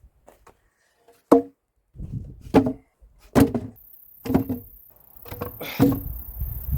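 Sawmill parts being handled out of their shipping crate: about five heavy knocks, each with a short ring.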